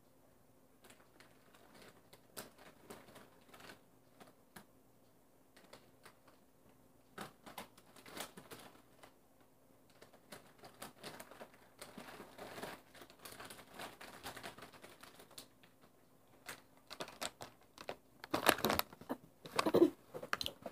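Snack packaging crinkling and rustling, with scattered light clicks and crackles that grow denser and louder. A loud rustle comes near the end.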